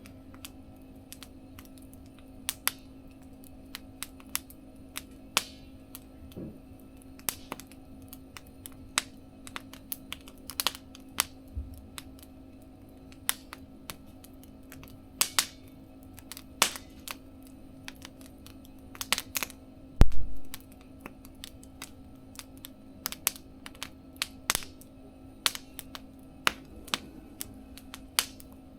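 Wood fire crackling, with irregular sharp pops and snaps, a faint steady hum underneath, and one louder thump about twenty seconds in.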